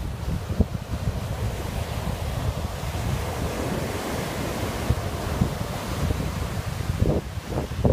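Rough sea after a typhoon: surf breaking and washing continuously, with wind buffeting the microphone and a few stronger gusts near the end.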